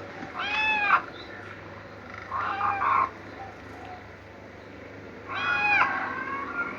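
A cat meowing three times, each a rising-then-falling meow of just over half a second, spaced a couple of seconds apart.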